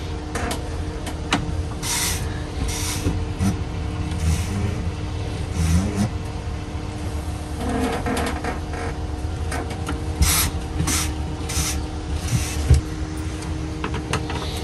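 Rubbing and rustling of an absorbent pad wiping an oil extractor hose as it is pulled out of an engine's dipstick tube, in short bursts with a few light knocks, over a steady low machine hum.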